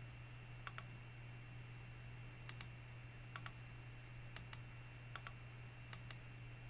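Computer mouse clicks, about six spread through, each a quick double tick of the button going down and coming up, over a faint steady low hum.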